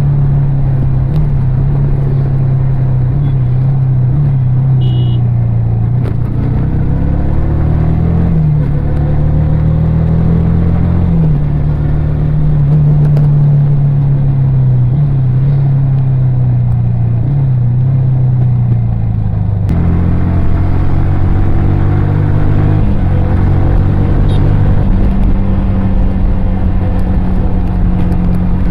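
Yamaha R15 V3's 155 cc single-cylinder engine and exhaust running under way on the road, its pitch rising and falling as the throttle and gears change, with a sudden shift in the note about two-thirds of the way through.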